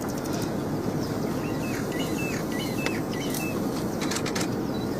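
Steady low rumble, likely a safari vehicle's engine, with a small bird calling a quick run of short high chirps in the middle.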